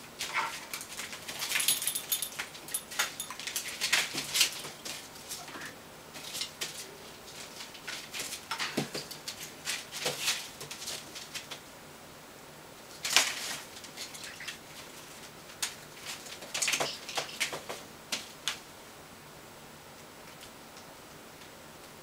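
An eclectus parrot playing with a ball on the floor of its wire cage makes scattered clicks, taps and rattles. They come in busy clusters, with the loudest knock about 13 seconds in, and die away over the last few seconds.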